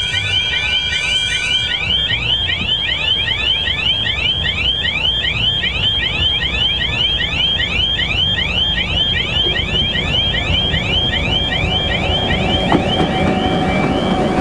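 An electronic warbling alarm repeats about four times a second and fades near the end. Under it, the TEM2 diesel shunting locomotive's engine rumbles as it approaches and grows louder in the last few seconds. A brief high steady tone sounds over the first two seconds.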